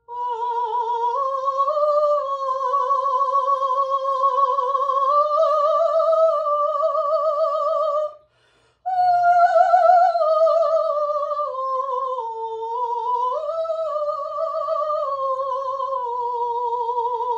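A woman singing long, classically trained high notes with a wide, even vibrato and no accompaniment, in two phrases with a short breath about eight seconds in. The second phrase starts higher, dips and climbs again before settling.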